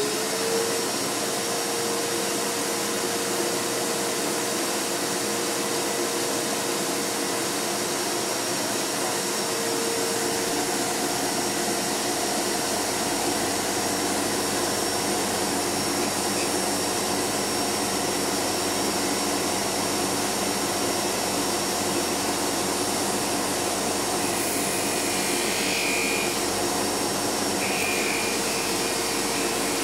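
Bench grinder fitted with a sanding wheel spinning up with a rising whine at the start, then running steadily while an aluminium motorcycle footrest bracket is pressed against the wheel to sand it. There is a little more scratchy sanding noise near the end.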